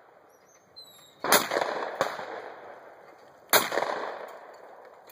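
Two shotgun shots about two seconds apart, each followed by a trailing echo.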